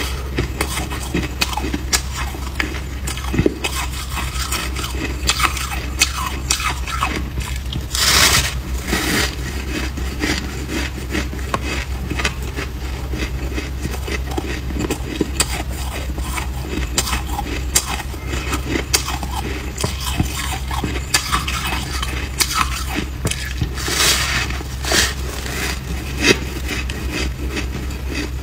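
A person biting and chewing a compacted chunk of frost close to the microphone: a dense stream of crisp crunches and crackles, with two longer, louder bursts of crunching about 8 and 24 seconds in, over a low steady hum.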